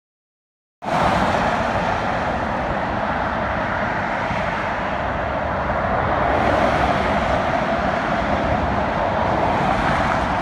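Road traffic on a wet multi-lane road: a steady wash of tyre and engine noise from passing cars, starting suddenly about a second in.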